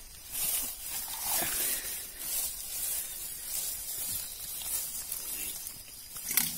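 A hand rummaging through thick grass, the blades rustling and brushing in uneven swells, with a sharp click near the end.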